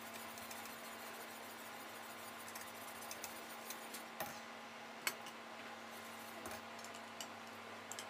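Faint, scattered light clicks of a wire whisk against a stainless steel pot, over a steady low hum.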